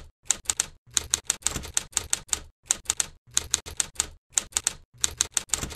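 Typewriter sound effect: sharp key strikes in quick, uneven runs of about four to five a second, with short pauses between runs.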